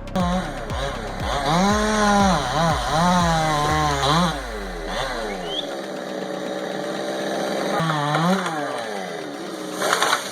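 Two-stroke chainsaw revving up and down, its pitch rising and falling as the throttle is worked. A low music beat runs underneath for the first few seconds.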